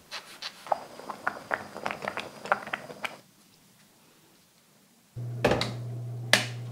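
Quick irregular taps and clicks of eggplant slices and a knife being handled on a wooden cutting board, then a short near-quiet gap. About five seconds in, a steady low oven fan hum starts, with a metal baking tray clanking and sliding onto the oven rack.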